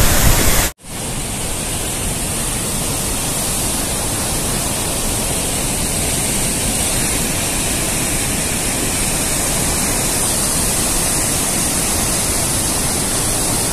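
Brown floodwater of a swollen river surging through a barrage, a steady loud roar of rushing water that sets in after a brief break just under a second in.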